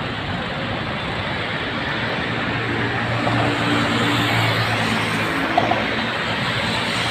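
Road traffic on a highway: cars and a motorcycle passing, with engine hum swelling in the middle over a steady wash of tyre noise.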